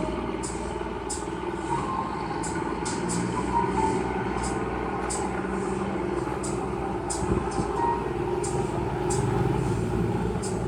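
Water taxi's engine running steadily under way, with water splashing and hissing against the hull at irregular short intervals.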